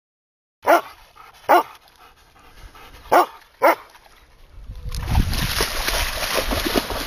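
Alaskan Malamute giving four short barks in two pairs, each bark rising and falling in pitch. After the last one, wind buffets the microphone with a steady rumbling hiss.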